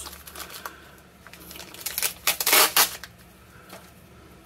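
Packaging being handled: a plastic bag and blue painter's tape crinkling and rustling, in a burst of sharp crackles about two seconds in, with a few fainter clicks before it.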